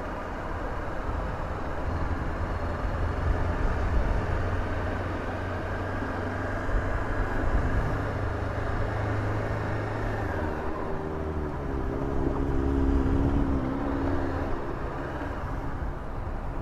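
Honda CB500F parallel-twin engine running at low speed as the motorcycle rolls along, a steady low rumble whose note shifts about ten seconds in.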